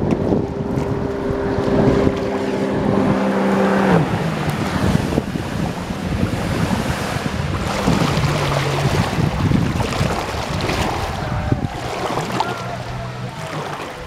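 A jet ski's engine running close by: a steady tone that drops in pitch about four seconds in, with lower passes later. Water splashes and wind buffet the microphone throughout.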